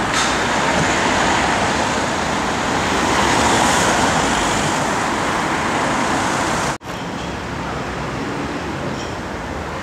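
City street traffic noise, a steady wash of vehicles going by. About two-thirds of the way through it cuts out for an instant and comes back a little quieter.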